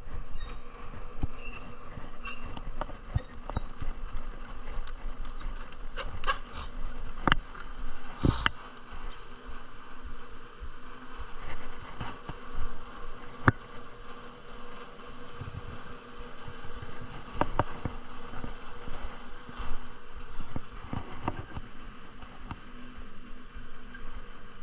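Scattered knocks and clicks of wooden workpieces being handled in a woodshop, over a steady faint machine hum.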